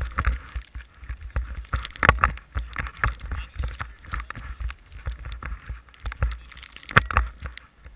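Snowmobile in deep powder, heard through a camera microphone being hit by snow spray and wind: a low rumble broken by irregular knocks and rushes, loudest about two seconds in and again about seven seconds in.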